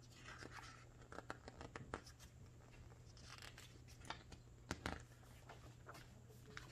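Faint scattered crackles and rustling of a picture book's paper pages being handled, with a page turned about two-thirds of the way through; the turn is the loudest sound.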